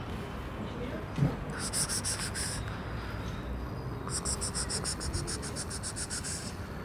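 Insect trilling in two high-pitched pulsed bursts, the second longer, at about seven pulses a second. A brief thump comes about a second in, over a steady low background rumble.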